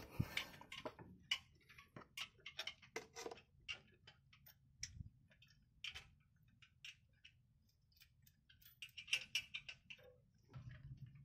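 Faint, irregular metallic clicks and taps of hand tools and bolts as a truck's clutch booster is being fitted. A low hum comes in near the end.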